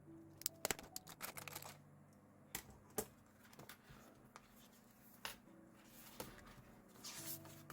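Paper and stationery being handled while a diary is decorated: an irregular run of light clicks, taps and short paper rustles.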